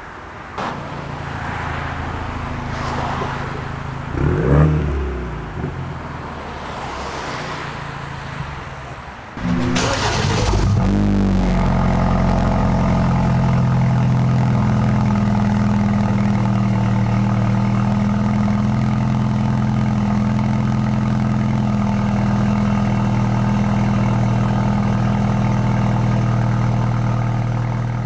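BMW N20 2.0-litre turbocharged four-cylinder with its mufflers deleted: the car drives by with a rising exhaust note about four to five seconds in, then about nine and a half seconds in the engine starts with a sudden flare and settles into a steady cold-start high idle.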